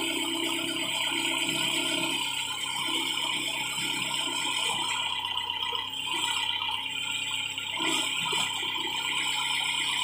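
Engine of an old tractor backhoe loader running with a loose metallic rattle. It rises and falls in loudness as the backhoe arm and bucket are worked, with a dip about six seconds in and a surge near eight seconds.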